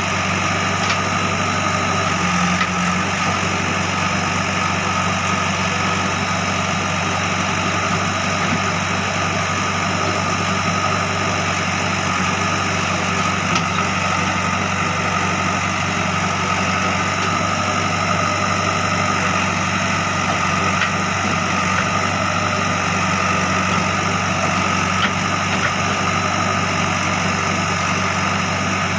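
JCB 3DX backhoe loader's diesel engine running steadily at an even pitch.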